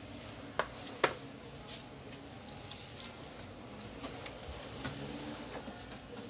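Handling noise from an opened tablet being moved on a bubble-wrap mat: two sharp clicks about half a second apart near the start, then scattered light clicks and rustling.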